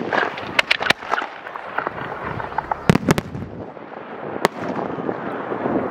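Professional fireworks display: sharp bangs of shells bursting, three in quick succession within the first second, a loud cluster of three about three seconds in and a single bang a second and a half later, with continuous crackling between.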